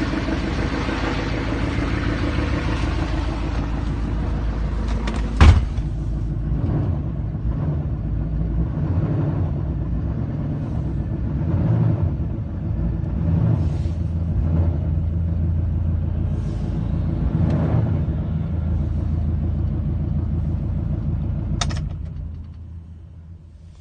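2007 6.6L LMM Duramax V8 turbodiesel idling with a knock from a spun crankshaft bearing, its rod or main bearing worn out. A single sharp click comes about five seconds in, and near the end the engine dies away and stops.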